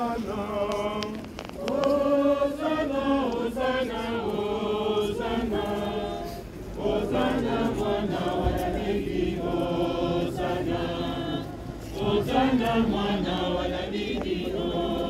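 A crowd of worshippers singing a hymn together, like a choir, in phrases with short breaths between them.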